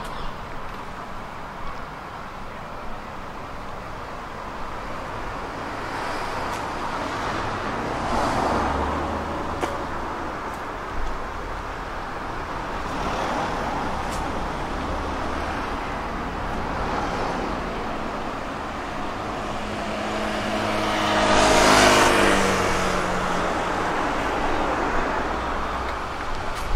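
Street traffic with cars passing one after another. One vehicle passes close toward the end, getting louder and then fading, its engine note falling in pitch as it goes by.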